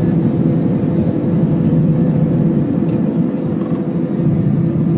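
Jet airliner engines at takeoff power heard from inside the cabin: a loud, steady drone with a low hum. The deepest rumble of the wheels on the runway drops away a little past halfway as the plane lifts off.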